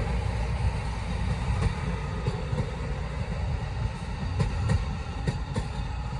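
Amtrak California Surfliner bilevel passenger cars rolling past, a steady low rumble of wheels on rail, with a few sharp clicks from the wheels in the second half.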